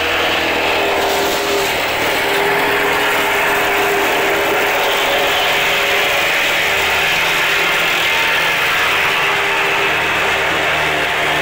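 Small petrol engine of a vibratory plate compactor running steadily, the plate vibrating as it compacts loose gravel.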